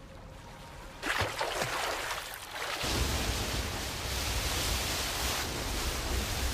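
Water splashing about a second in, then a steady rush of moving water with a low rumble underneath.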